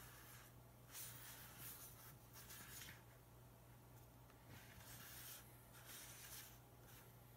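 Faint scratchy swishes of a hand rubbing over and shifting a cardboard iPhone 7 box on a wooden table, about four strokes, over a steady low hum.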